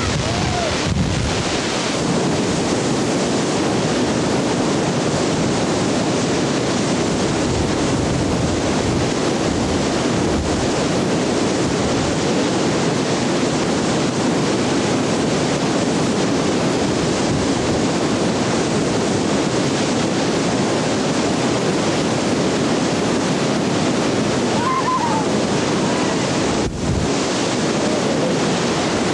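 Steady rushing of a big whitewater rapid, loud continuous river noise with no let-up, briefly dipping near the end.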